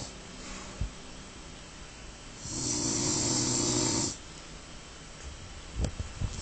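Loud snoring: one long snore starts about two and a half seconds in and lasts about a second and a half, as the tail of an earlier snore fades at the start. A short soft thump comes about a second in, and a few faint clicks near the end.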